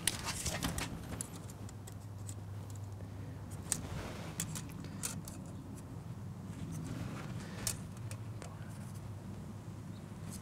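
Scattered light clicks and taps of a tape measure and marker handled against PVC pipe as cut lines are marked out, over a low steady hum.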